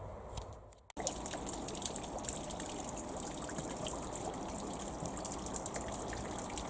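Water running or splashing, a steady hiss with many small crackles, starting abruptly about a second in after a brief fade to silence.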